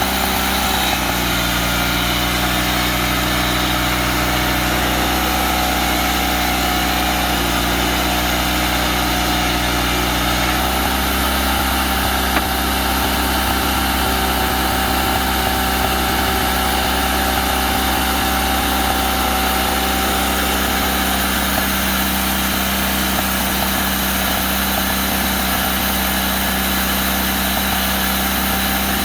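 Engine of an early-1990s Wood-Mizer LT40 portable sawmill running steadily on its first run after restoration, its note shifting slightly about ten seconds in.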